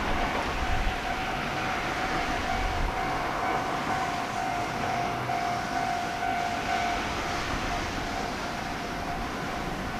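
Kotoden Shido Line electric train running away over the rails: a rumbling with a steady high tone, slowly fading as it recedes.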